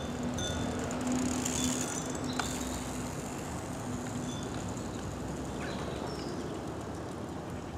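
Steady outdoor background noise with a bicycle rolling over brick paving, a low steady hum through the first half and a few short high chirps from birds.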